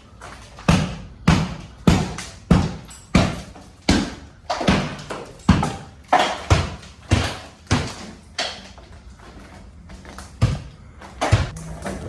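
Repeated sharp blows on wood, about two a second for some seven seconds, then two more near the end. It is the sound of hand demolition, knocking down a wooden slat ceiling.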